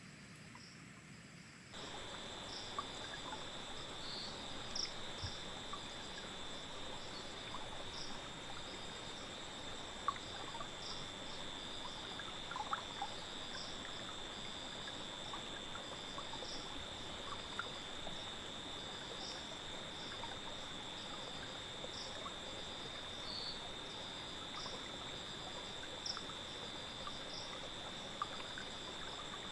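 Forest insects at night: a steady high trill with short chirps repeating above it and scattered faint ticks. The chorus comes in about two seconds in, after a quieter moment.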